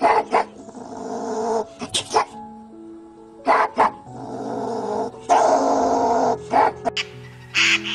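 A sable's rasping, chattering calls in three loud bouts, over background music with long held notes.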